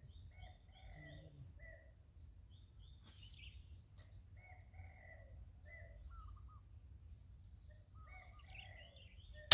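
Birds calling in short chirping notes, singly and in quick runs, throughout, over a low steady background rumble. There are a couple of faint clicks about three and four seconds in.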